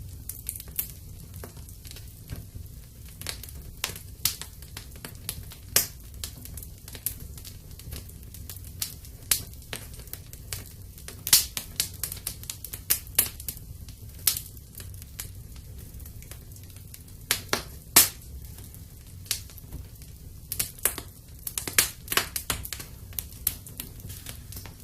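Wood burning in a fireplace, crackling with irregular sharp pops and snaps over a steady low rumble.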